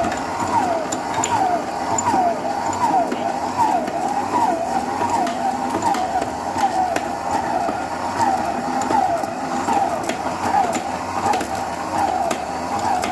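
Electric stand mixer kneading a bread dough with its dough hook, margarine being worked in. The motor runs with a steady whine that wavers in pitch about twice a second, with faint clicks.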